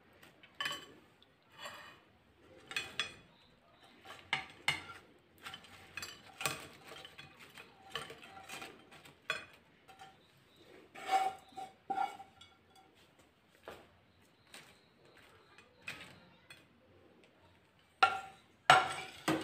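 Irregular clinks, scrapes and knocks of a frying pan against a ceramic plate as fried potato wedges are slid out onto it, some clinks briefly ringing. The two loudest knocks come near the end.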